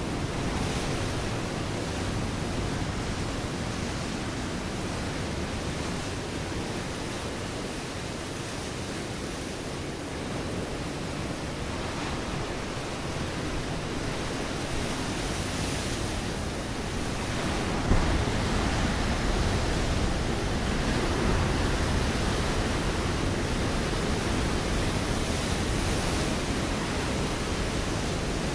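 Ocean waves breaking on a rocky shore: a continuous rushing wash of surf that swells and ebbs slowly, with a stronger wave crashing about two-thirds of the way through.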